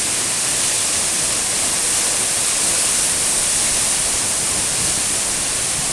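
A 104-foot waterfall in spate, swollen by heavy rain: a steady, unbroken rush of falling water.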